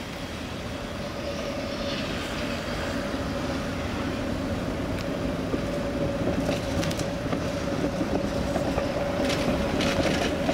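Articulated tram running through on street track, a steady hum growing louder as it approaches. From about six seconds in come a series of sharp clicks and clacks from the wheels on the rails.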